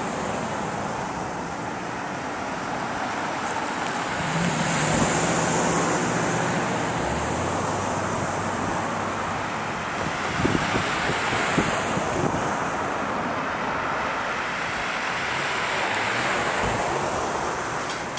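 Street traffic: cars driving past on the road, with wind rumbling on the microphone. The sound swells twice as vehicles go by.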